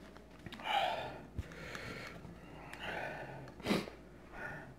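A man breathing hard through his nose and mouth, a few sharp sniffs and puffing breaths, with small mouth clicks between them: the reaction to the heat of spicy food.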